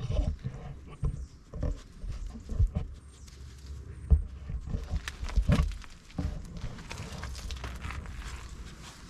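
Irregular footsteps and knocks of someone walking, over a steady low rumble.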